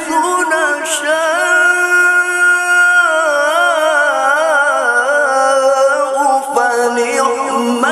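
A male qari recites the Qur'an through a microphone, drawing one phrase out in a long, ornamented melisma. The single unaccompanied voice wavers in quick turns, holds a long note, and then glides lower about halfway through.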